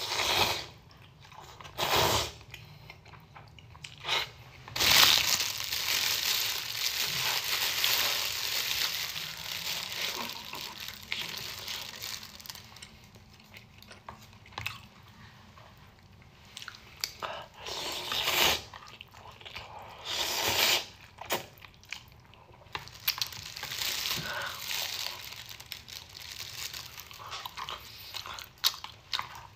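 Noodles being slurped and chewed close to the microphone, with a long slurp lasting several seconds starting about five seconds in, and a few short sharp mouth noises.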